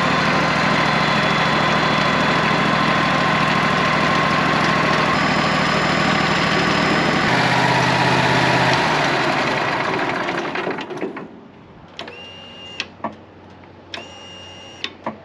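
Wood-Mizer LT40 sawmill engine running steadily with a newly fitted O2 sensor, then winding down and stopping about ten seconds in. A few short high beeps follow near the end.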